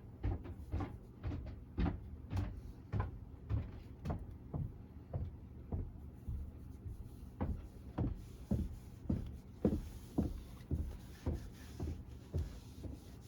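A steady series of soft knocks or thumps, about two a second, over a low background rumble.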